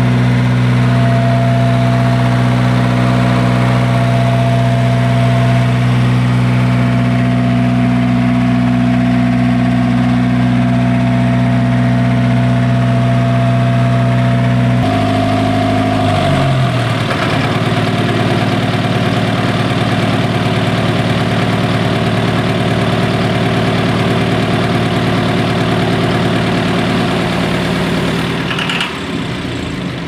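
Isuzu diesel generator engine running steadily, a low even drone with a strong fixed pitch. Its note shifts about halfway through, then holds steady again.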